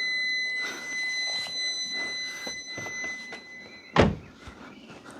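A car's warning buzzer sounding a steady, high, unbroken tone as the headlamp is switched on. About four seconds in, a car door shuts with a loud thunk and the buzzer stops at once.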